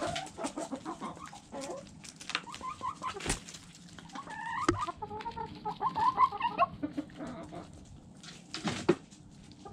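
Chickens clucking as they feed, with sharp taps of their beaks pecking at food on the ground. The clucking is busiest from about four to seven seconds in.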